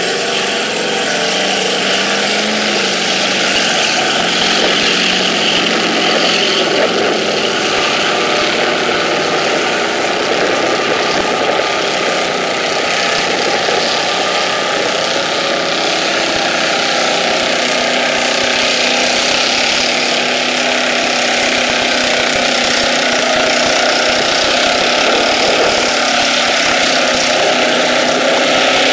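Off-road Chevy's engine running loud and steady, its pitch shifting a little as the throttle changes.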